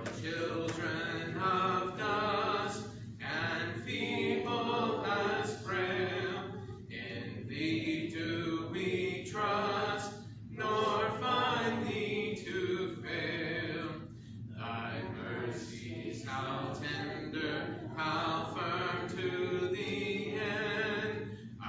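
Church congregation singing a hymn a cappella, many voices together with no instruments, with short breaths between the sung lines.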